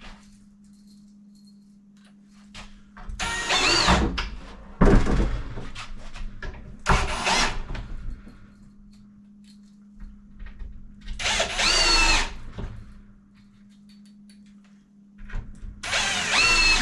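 Power drill run in about five short bursts, its motor whine rising and falling in pitch with each squeeze of the trigger, as it drives fasteners into cabinet panels. A faint steady low hum runs underneath.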